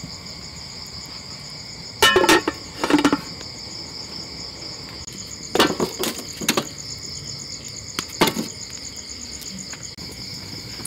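Crickets and other insects chirping in a steady high-pitched chorus, pulsing in the second half. It is broken by a few short louder sounds about 2, 3, 6 and 8 seconds in.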